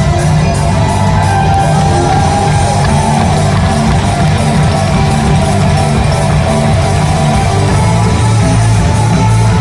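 Music: a kolomyika, a Ukrainian folk dance tune, played with a steady, even beat.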